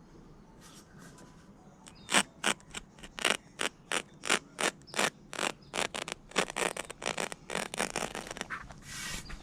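A quick run of short scraping strokes, about three a second, starting about two seconds in and going on for some seven seconds.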